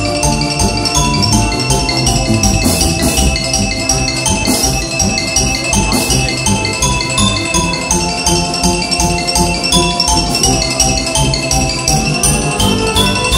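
Xylophone solo played live in fast runs of quick struck notes, with a wind band accompanying underneath.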